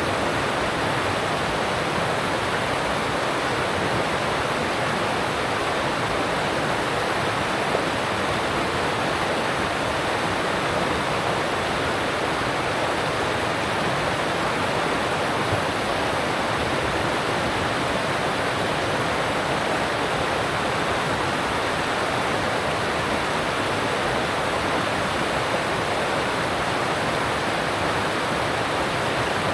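Alpine mountain stream rushing steadily over rocks, a constant even rush of water.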